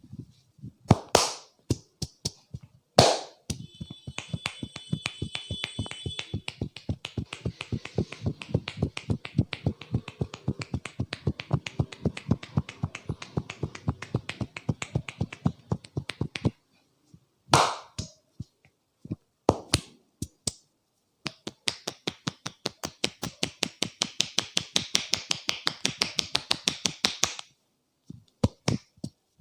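Hands striking a head in a percussive head massage: long runs of quick, even slaps and taps, with a few louder single slaps between the runs.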